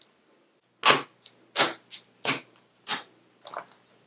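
Glitter glue slime being squeezed and poked by fingers, giving a string of sharp wet pops as air pockets burst, the loudest four about two-thirds of a second apart.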